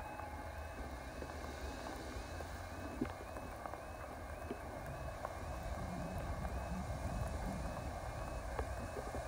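Railway level crossing alarm sounding a quick, evenly repeating warble, over low wind rumble on the microphone.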